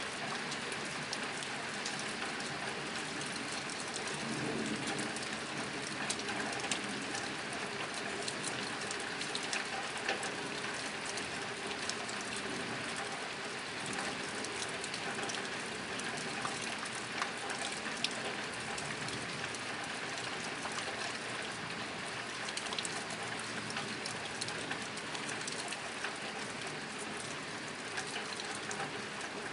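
Steady rain drumming on a tin roof: a constant patter of drops with scattered louder individual hits on the metal.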